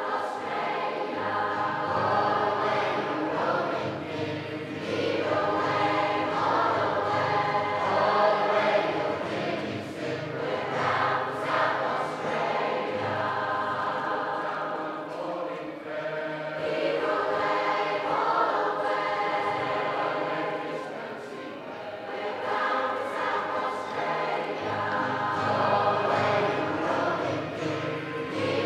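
A large mixed choir singing a sea shanty together, many voices in unison and harmony over a steady low bass line. The singing runs in long phrases that swell and ease, with short dips in loudness between them.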